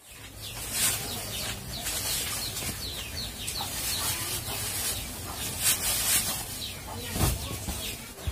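Small birds chirping in the background, many short falling chirps, with the rustle and soft thumps of a pillow being worked into a cotton pillowcase, loudest at about one second in, again near six seconds and near the end.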